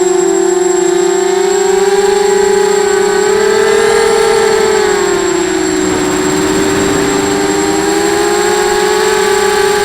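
Brushless motors of a 250-size FPV racing quadcopter whining in flight, the pitch rising about four seconds in, dipping a couple of seconds later, then climbing again as the throttle changes.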